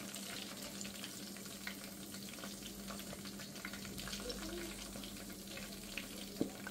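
Flour-and-cornstarch-coated chicken wings sizzling as they shallow-fry in oil in a skillet, a steady hiss, with a couple of sharp clicks near the end as metal tongs lift them out.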